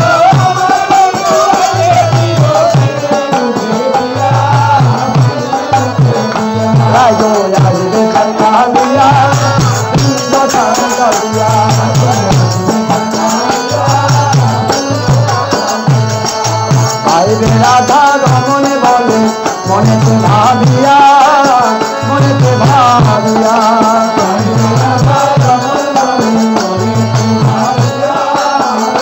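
Bengali devotional kirtan song: voices singing a wavering melody over a hand drum that beats a repeating low pattern, with hands clapping along.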